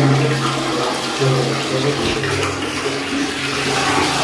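Water running steadily from a Jaquar wall-mixer spout into a plastic bucket, flowing freely after the diverter cartridge was cleaned and refitted. A steady low hum runs underneath and drops in pitch about two seconds in.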